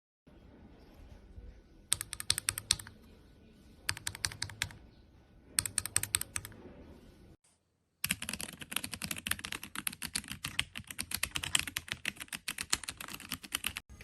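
Mechanical keyboard with Royal Kludge RK switches being typed on. There are three short bursts of rapid key presses, then a brief break, then continuous fast typing.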